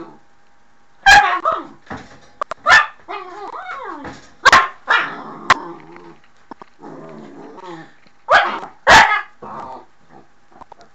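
A puppy barking at a door: a string of sharp barks in twos and singles, with quieter vocal sounds between them.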